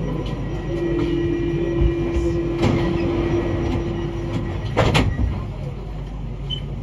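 Inside an MP14 rubber-tyred metro train: a steady rumble with a flat tone held for about four seconds, and two sharp knocks, the first about two and a half seconds in and the louder one about five seconds in.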